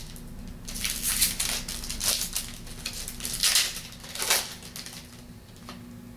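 Trading cards and their pack wrapper being handled, making several short rustling, crinkling bursts, with a small click near the end.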